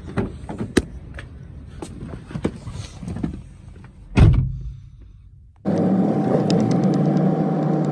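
Car door handling: a few clicks and knocks as the door is opened, then one heavy thud as the driver's door is shut about four seconds in. About a second later, a steady hum starts abruptly: a Toyota Corolla running, heard from inside the cabin.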